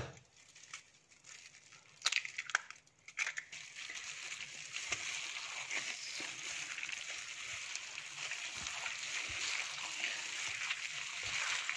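Wet squishing and plastic rustling of a gloved hand kneading raw beef mince with egg, onion and gram flour. A few soft clicks at first, then a steady squelching from about three and a half seconds in.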